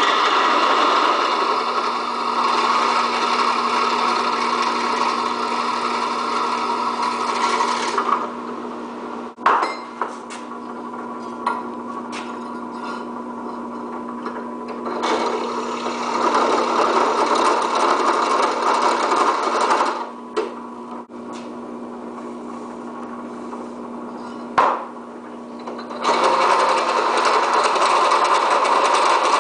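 Benchtop drill press running, its motor humming steadily while a step drill bit cuts into a flat metal piece in three spells of loud cutting. Between the spells only the motor runs, with a few sharp knocks.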